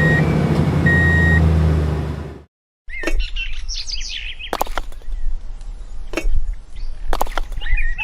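A loud, steady low motor-like drone with two short high beeps about a second apart, cutting off suddenly about two and a half seconds in. After a brief silence come bird chirps mixed with several sharp knocks.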